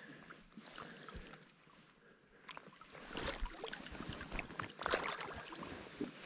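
Water splashing and sloshing over a steady river hiss, with scattered small clicks and knocks that grow busier from about halfway through.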